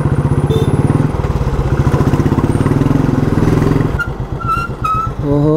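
Motorcycle engine running under way, its rapid firing pulse steady and then easing off about four seconds in. Three short high beeps follow.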